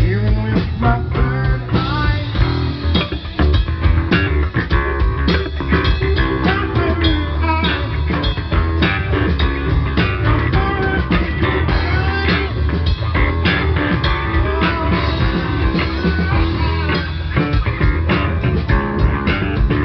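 Live funk-rock band playing: electric guitar and bass guitar over a drum kit.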